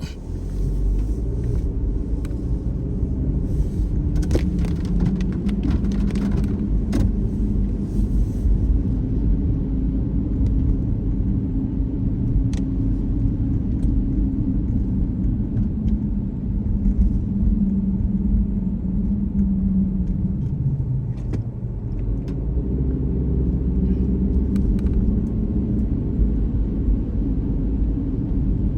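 Car running on the road: a steady low engine and road rumble whose pitch drops about twenty seconds in and climbs again a couple of seconds later. A few sharp clicks come in the first eight seconds and once near the middle.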